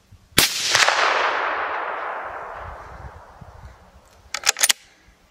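A single hunting rifle shot about half a second in, its echo rolling away through the forest and fading over about three seconds. A few sharp clicks come near the end.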